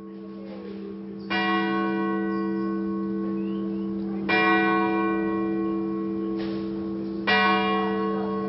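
Church bell tolling, struck three times about three seconds apart, each stroke ringing on and humming into the next.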